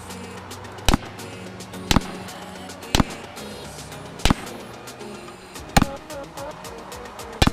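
Six sharp gunshots, irregularly spaced a second or so apart, over background music.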